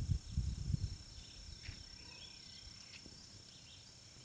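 Wind buffeting the microphone in the first second, then a faint steady high insect drone with a few short bird chirps.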